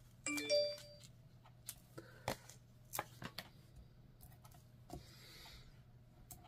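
A notification chime from a device whose Do Not Disturb was left off: a short three-note rising chime lasting about half a second, the loudest sound here. It is followed by faint, scattered taps and rustles of paper handling.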